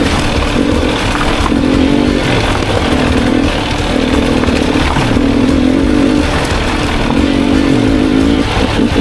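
250cc enduro dirt bike engine running on the trail, its note rising and falling as the throttle is worked every second or so.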